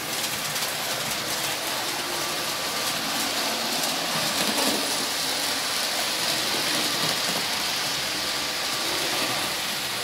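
Model trains running on the layout's track: a steady hissing rumble of wheels and motors that grows a little louder as the old Hornby HST, upgraded, passes close by in the middle.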